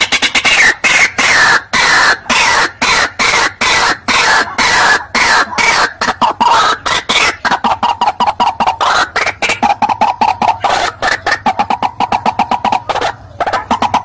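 White-breasted waterhen (ruak-ruak) calling in a long run of harsh repeated notes. The notes come about three a second at first, then quicken into a rapid series later as the pitch settles lower, with a short break near the end.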